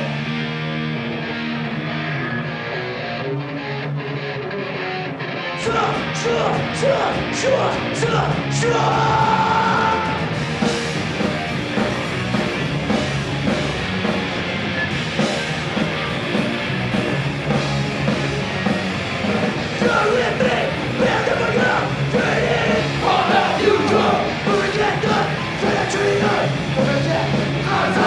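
Punk rock band playing live through a club PA: about five seconds of distorted guitar with no drums, then drums, cymbals and bass come crashing in and the full band plays fast and loud.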